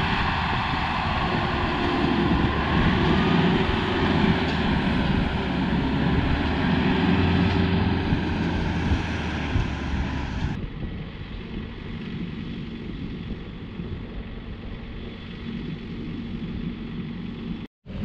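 Compact diesel tractor engine running under load while moving hay bales, its pitch slowly rising and falling. About ten and a half seconds in, the sound cuts to a quieter, duller engine hum.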